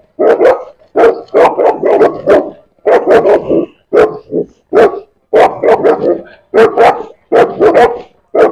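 Large mastiff-type dogs barking repeatedly at close range: loud, deep barks in quick clusters of two or three, about one cluster a second.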